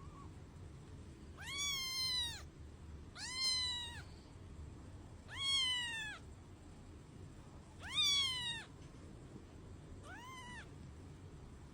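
A domestic cat meowing five times, about every two seconds, each meow rising and then falling in pitch; the last one is shorter and fainter.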